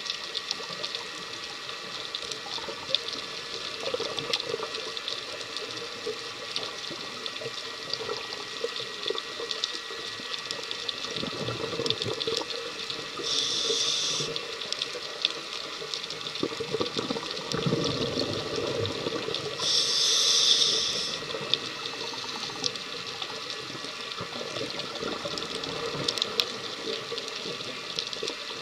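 Underwater reef ambience heard through a dive camera's housing: a steady crackling hiss. Twice, about six seconds apart, a scuba regulator breath: a low bubbling exhale followed by a short, sharp hissing inhale, the second breath the loudest.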